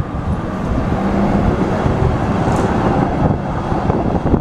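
Red-and-white high-floor tram with a trailer car passing close by, its wheels running on the rails in a loud, steady rumble.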